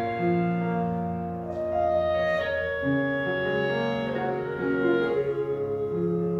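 Clarinet and piano playing a slow hymn in long held notes and chords.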